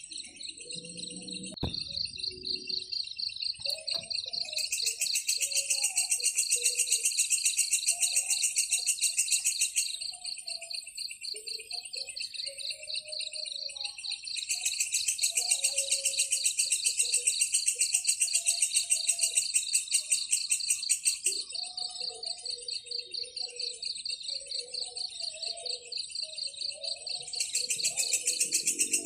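Nature-sound bed of insects chirping: a steady, rapid, even pulsing high up, joined by a louder, higher pulsing layer that comes and goes in long bouts (about 5 to 10 s, 14 to 21 s, and again near the end). Short, soft low calls are scattered underneath.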